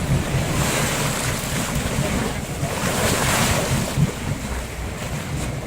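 Wind buffeting the microphone over the sound of sea water washing against a boat, with gusts of hiss rising and falling around a second in and again about three seconds in.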